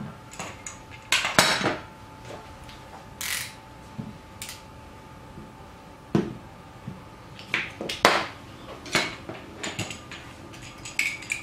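Irregular metallic clinks and knocks as a stainless steel rotary grater and its parts are handled and set down on a wooden tabletop, with cucumber cut and put down in between.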